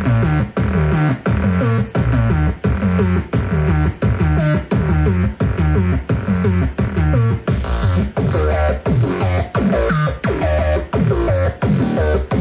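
Make Noise 0-Coast semi-modular synthesizer playing a fast, repeating arpeggio driven by a MIDI arpeggiator. Many of the short notes glide quickly down in pitch.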